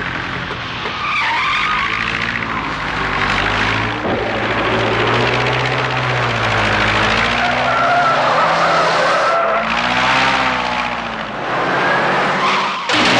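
Film soundtrack of a Cessna 140 light plane's engine running hard as it taxis fast on the ground, with tyres skidding and pitched tones that rise and fall.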